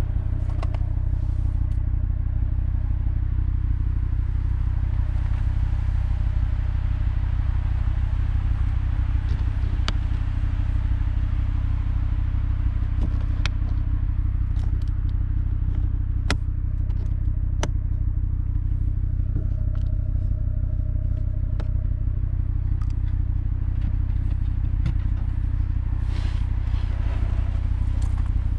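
Audi RS3's 2.5-litre five-cylinder turbo engine idling steadily. Over it come a few sharp clicks, and near the end some clatter as the boot trim and load-floor panel are handled.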